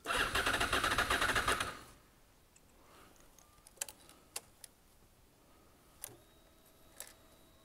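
Starter motor of a Honda VFR800 V4 cranking in a rapid rattling whir for about two seconds on a cold start without the engine catching. Then several sharp clicks of the ignition key, and about six seconds in a faint steady hum as the ignition comes back on, typical of the fuel pump priming.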